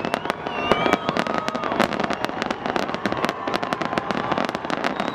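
Fireworks finale: aerial shells bursting in a rapid, unbroken barrage of bangs and crackles, many each second.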